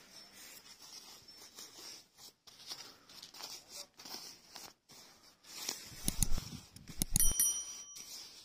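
Rustling of jackets being handled and pushed aside in a bale of used clothing. A few louder bumps and knocks come near the end.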